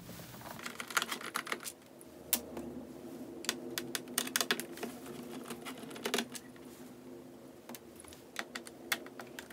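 Irregular light clicks and taps of a screwdriver working on the screws of an Acer Aspire F5 laptop's plastic bottom cover, as the screws are undone.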